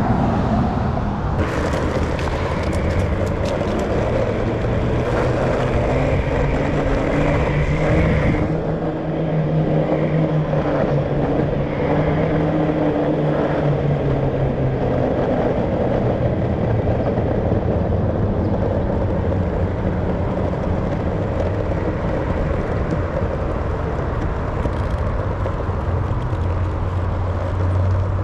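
Steady road traffic: car engines and tyre noise, with one engine's hum standing out for several seconds about a third of the way in.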